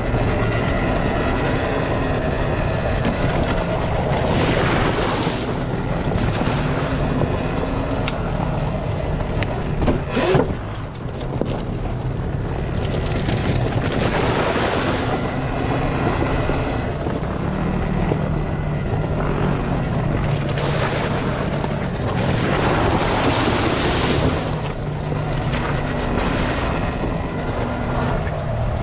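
Volcon Grunt electric off-road motorbike riding a dirt trail. Its motor whine rises and falls with speed over the rush of tyres on dirt and wind on the microphone, with one sharp knock about ten seconds in.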